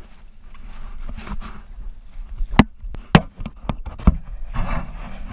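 Several sharp knocks against a kayak's hull, bunched in the middle, with soft water sloshing between them.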